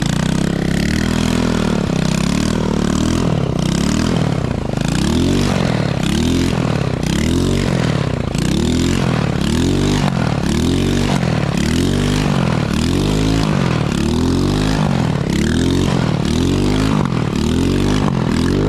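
A Chinese 110cc ATV's small single-cylinder four-stroke engine revving up and falling back over and over, about once a second. The quad is struggling for grip in the snow.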